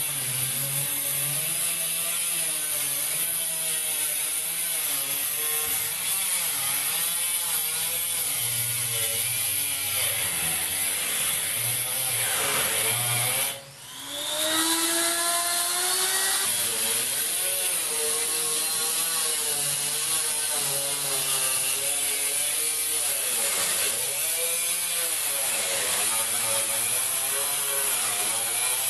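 Electric die grinder with a friction cut-off disc cutting through the thin sheet steel of a filing cabinet, running with a steady high whine and grinding. About halfway through it stops briefly while the tool is lifted, then spins back up with a rising whine and goes on cutting.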